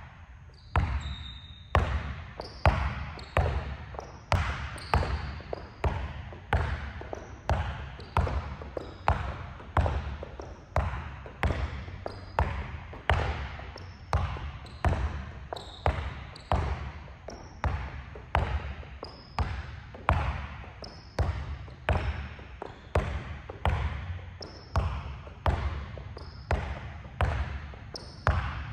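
A basketball dribbled hard on a gym court floor in a steady rhythm, about one bounce a second, each bounce echoing in the hall.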